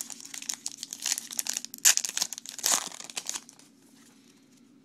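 A trading-card pack wrapper being torn open and crinkled as the next pack is opened. The crinkling is loudest with sharp rips around two seconds and again a little later, and it stops about three and a half seconds in.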